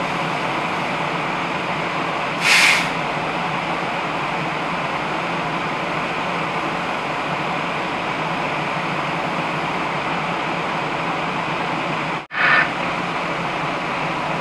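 Steady rushing spray of a fire hose stream played onto a burning tree, with the fire engine's pump running as a low hum underneath. A brief louder hiss comes about two and a half seconds in and again near the end.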